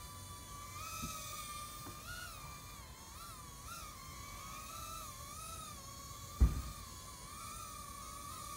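Cheerson CX-10 nano quadcopter's four tiny motors whining in flight, a high tone that wavers up and down in pitch as the throttle shifts. A low thump about six and a half seconds in.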